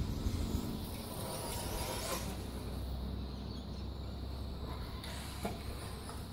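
Yokomo YZ-10 electric RC buggy running on a grass track. Its motor whine and tyre noise swell briefly about two seconds in, over a steady low hum, with one sharp click near the end.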